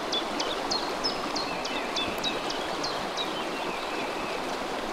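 Steady rushing of a small river's water flowing over a shallow riffle. Over it a bird calls quickly with short, high chirps, each falling in pitch, which stop about three and a half seconds in.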